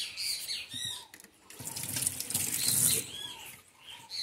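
Faucet water running into a sink for about a second and a half, starting about a second and a half in, as a kitchen knife is washed with a sponge.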